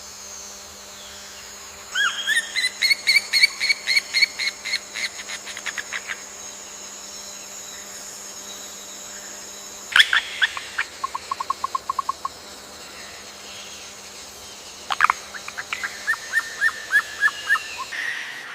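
A bird singing in three bouts of quick, repeated whistled notes: the first about two seconds in, rising at the start and then steady; the second about halfway, ending in a fast, lower trill; the third near the end, slower and level. A faint steady hum lies underneath.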